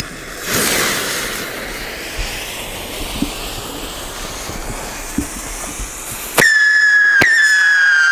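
Firework fuse hissing and sputtering, with a few small pops, for several seconds. About six seconds in a screamshot fires from its tube with a sharp crack and lets out a loud, high whistle that slowly falls in pitch. A second crack follows about a second later while the whistle goes on.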